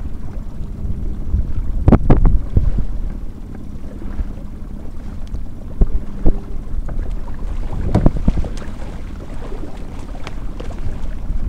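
Wind buffeting the microphone and water splashing against the hull of an inflatable boat moving through the sea, with sharp knocks about two seconds in, around six and eight seconds, and again near the end.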